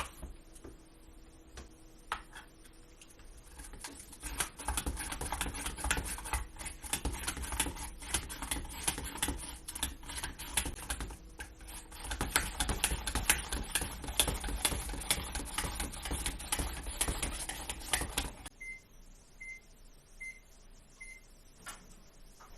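Dense, rapid crackling and clicking for about fourteen seconds, then four short, even beeps from a microwave oven signalling that it has finished.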